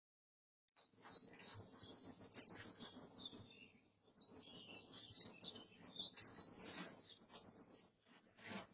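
Small birds chirping and singing in fast, repeated trills, starting about a second in, over a low background rumble.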